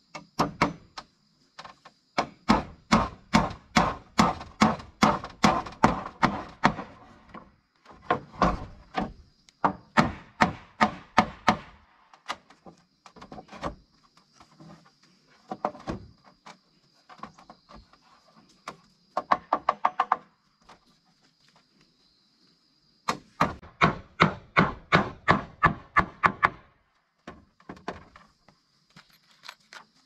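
Hammer driving nails into wooden roof boards: quick runs of blows, about four a second, broken by short pauses.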